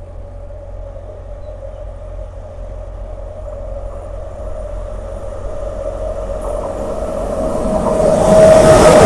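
Indian Railways express train approaching at speed with its horn held in one long, steady note. The rushing noise of the train grows steadily louder and is loudest near the end.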